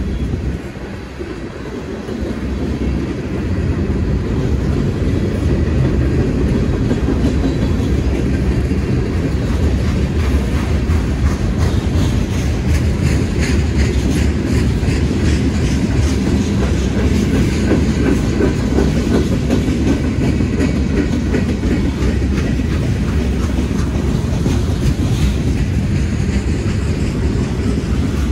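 Freight train cars rolling past close by: a steady rumble of steel wheels on the rails, with quick repeated clicking as the wheels pass over rail joints.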